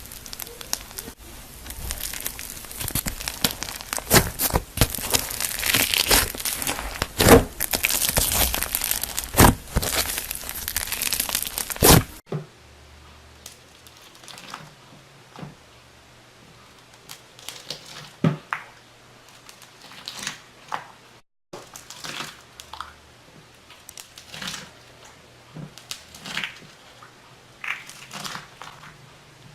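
Slime being squeezed and stretched by hand, giving a dense run of crackling clicks. About twelve seconds in it cuts abruptly to a quieter stretch of scattered clicks and pops.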